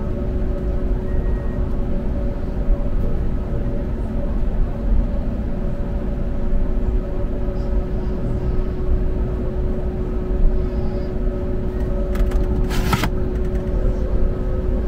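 Cabin noise inside an Airbus A321neo on the ground at taxi: a steady low rumble with a steady hum from the engines and cabin air. A short rattle of clicks comes near the end.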